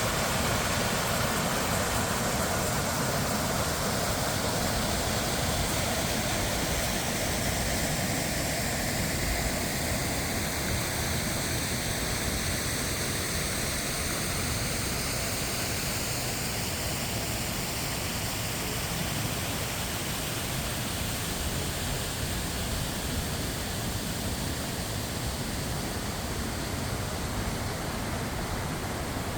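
Waterfall rushing steadily, an even hiss of falling water with a slowly shifting, swishing tone.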